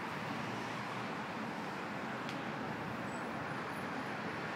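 Steady, even background noise of road traffic.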